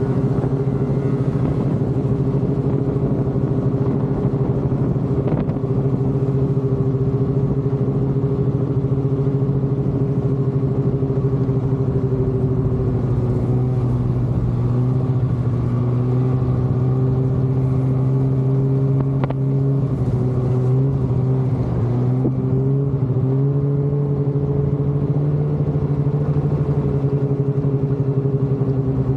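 Snowmobile engine running at a steady cruising speed, its pitch dipping briefly about three quarters of the way through and then picking back up.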